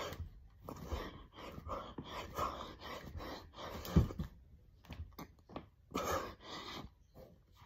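A man panting hard from the exertion of doing push-ups: quick, rhythmic breaths in and out close to the microphone, with a low thump about four seconds in.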